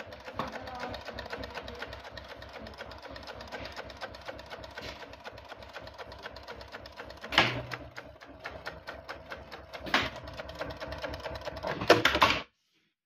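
Dürkopp Adler 467 long-arm industrial sewing machine stitching through fabric in a fast, even run of needle strokes. Three louder clacks come in the second half, and then it stops about twelve seconds in.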